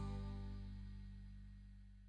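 Background music fading out, its low held notes dying away steadily.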